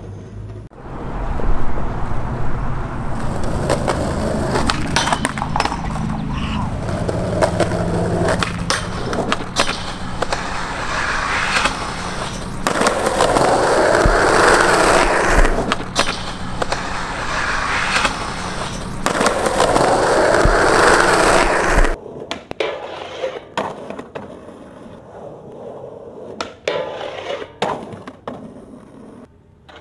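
Skateboard wheels rolling on concrete, loud with a low rumble, broken by sharp pops and board impacts. After about 22 seconds the rolling is quieter and the knocks come more scattered.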